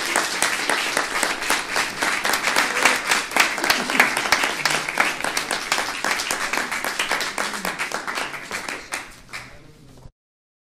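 Audience applauding, a dense patter of many hands clapping that thins out over the last couple of seconds and cuts off suddenly about ten seconds in.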